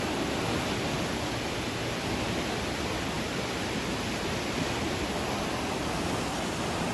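Steady rushing of a river in flood, the muddy water pouring past a bridge's piers in an even, unbroken roar of noise.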